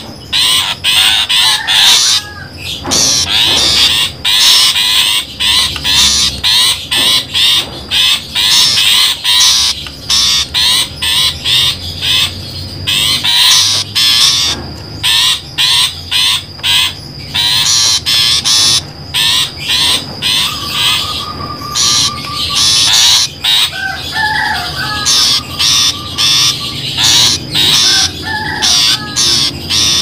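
Long-tailed shrike (pentet) calls from a bird-trapping lure recording: harsh, rapid runs of short chattering notes, with some warbled notes mixed in.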